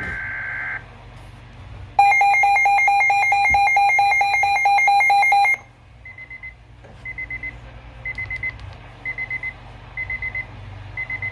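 Emergency alert broadcast tones: a steady two-tone data burst cuts off just under a second in, then a loud, rapidly pulsing alert tone sounds for about three and a half seconds, followed by clusters of short high beeps about once a second.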